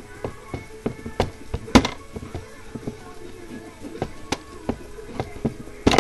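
Objects being handled close to the microphone: a string of irregular clicks and knocks, the loudest about two seconds in and again near the end.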